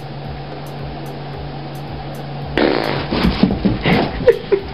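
A boxer dog breaking wind. A loud, rough blast comes about two and a half seconds in, with short squeaky bits near the end, over a steady low hum.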